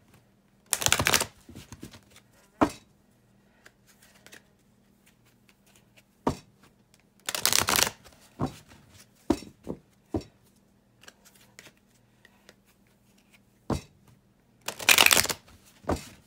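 A deck of oracle cards being shuffled by hand: three brisk bursts of shuffling, about six to seven seconds apart, with single sharp clicks of the cards between them.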